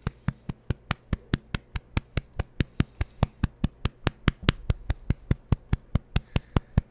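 Small dog licking a man's beard and neck: a rapid, even run of sharp clicks, about five a second.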